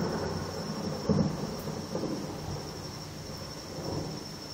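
Thunder rumbling, with a swell at the start and another about a second in, then dying away.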